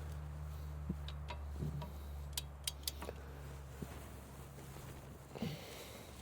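Steady low hum with a handful of sharp metallic clicks and clinks, seven or so spread over the first four seconds, as of tools or parts being handled.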